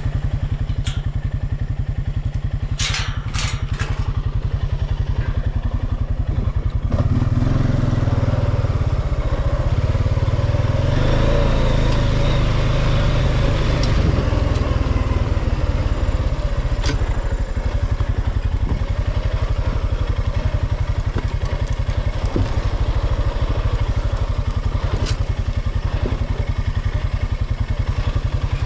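ATV engine running steadily, with a few sharp clicks a few seconds in. From about seven seconds in the engine pulls harder and louder for several seconds, then settles back to a steady run.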